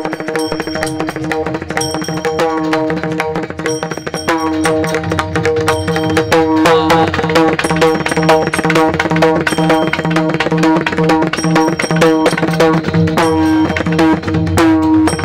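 Marathi abhang devotional music: a tabla-type hand drum keeps a steady rhythm over sustained held notes, growing louder a few seconds in.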